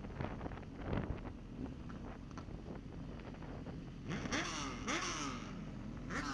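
Vehicle engines running on the road, with wind buffeting the microphone. From about four seconds in, engine pitch rises and falls as the engines rev up and down, with bursts of rushing hiss.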